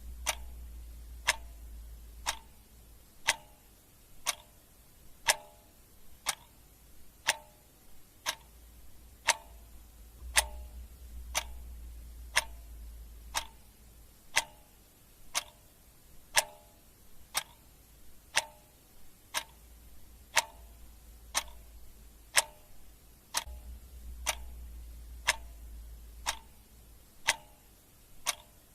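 A clock ticking steadily, one sharp tick a second. A faint low rumble comes and goes underneath.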